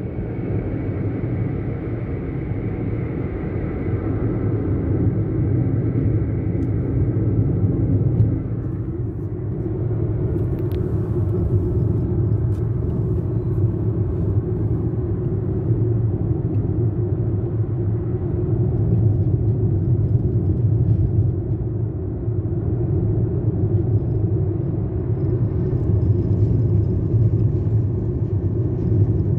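Steady low rumble of a car driving, with road and engine noise heard from inside the cabin.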